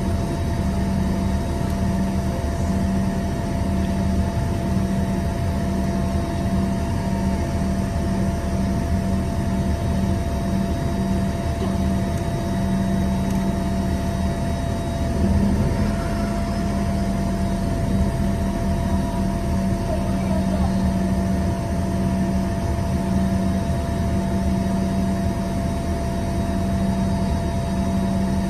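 Cabin noise of an Embraer ERJ-145 regional jet, its rear-mounted Rolls-Royce AE3007 turbofans running steadily: an even rushing hum with a held mid-pitched whine and a low, gently pulsing drone.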